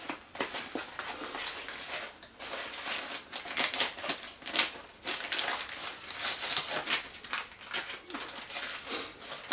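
Rustling and crinkling of MRE packaging, a plastic ration pouch and its cardboard sleeve, handled by hand, with irregular crackles throughout.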